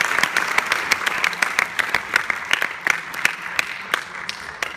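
Audience applauding: many hands clapping together, the clapping thinning out and fading away toward the end.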